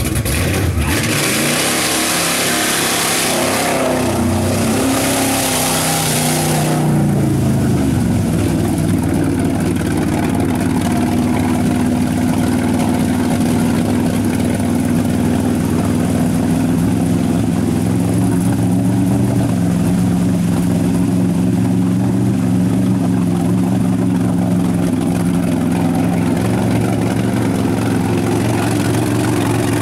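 Engine of a lifted Chevrolet S-10 pickup revving as its mud tyres churn through a deep mud pit. A loud rushing noise covers the first several seconds; after that the engine runs in a steady high-revving drone whose pitch wavers up and down.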